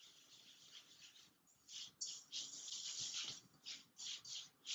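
Wooden spoon stirring a thick mix of seeds and nut butter in a stainless steel bowl: quiet, irregular scraping strokes that start about a second and a half in.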